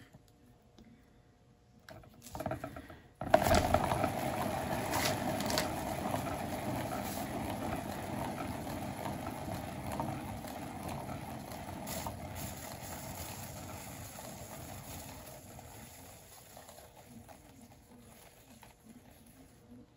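Hand-spun lazy Susan turntable carrying a paint-pour board: a knock about three seconds in as it is set going, then a steady rumbling whir that slowly dies away as the spin slows to a stop.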